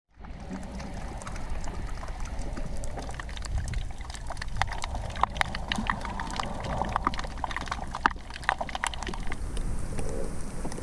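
Underwater sound heard through a GoPro's housing: a low, muffled rumble of moving water with many scattered sharp clicks and crackles, thickest in the middle of the stretch.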